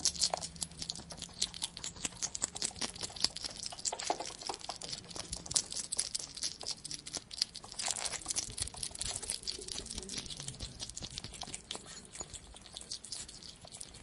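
A hedgehog scrabbling over wood-pellet bedding and in a plastic exercise wheel: a dense run of light crackling, rustling clicks, a little louder about eight seconds in.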